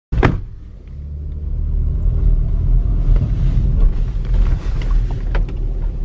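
Car driving, a steady low road rumble, with a short sharp thump right at the start.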